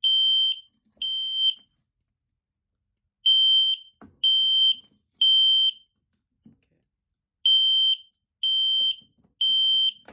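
Gentex Commander fire alarm horn sounding, quite loud, in the temporal-3 pattern: three half-second blasts a second apart, a pause of about a second and a half, then three more. This is the standard evacuation signal of a fire alarm system in alarm after a pull station has been activated.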